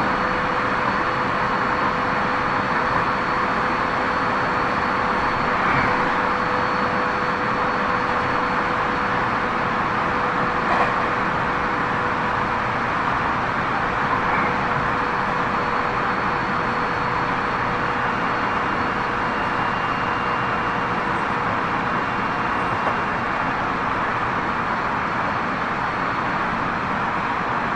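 Tobu 30000 series electric train running at a steady speed, heard from inside the car: a constant rumble of wheels on rail with a steady hum at an unchanging pitch. There are a couple of brief knocks, about six and eleven seconds in.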